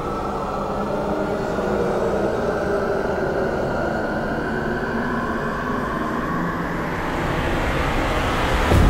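Horror film sound design: a low rumbling drone with faint sustained tones swells and grows brighter, then ends in a sudden loud hit with a deep boom, a stinger, near the end.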